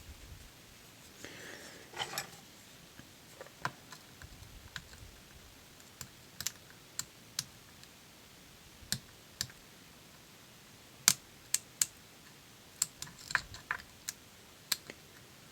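Small, sharp clicks of a lock pick working the spring-loaded side pins of a Robur safe deposit box lock's sidebar, scattered and irregular, with a run of louder clicks in the second half.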